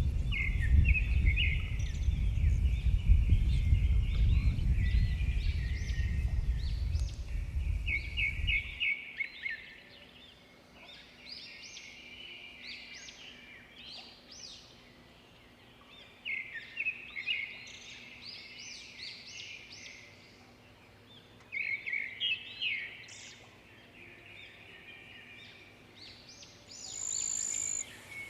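Several birds chirping and singing in short, repeated trills. A loud low rumble runs under them for the first nine seconds and then cuts off suddenly.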